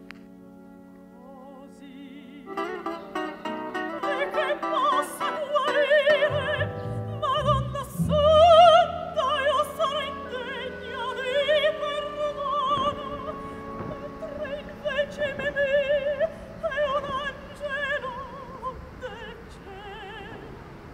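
Operatic singing over an orchestra: held orchestral chords at first, then a high voice with strong vibrato comes in a few seconds in.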